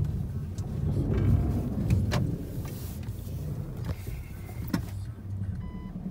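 Car creeping through deep snow and a shallow water-filled dip: a low engine and tyre rumble that swells briefly, with a few sharp knocks from the body and suspension.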